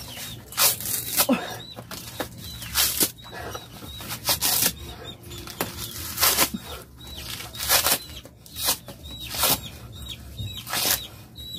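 Fibrous coconut husk being ripped off by teeth and hands: a series of short, irregular tearing rips, about one every second. The husk's fibres cling to the shell, which makes the stripping hard.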